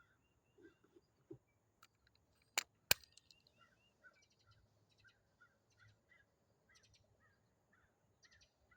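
Birds calling outdoors in a quick series of short, repeated chirps. About two and a half seconds in there are two sharp clicks in quick succession, which are louder than the birds.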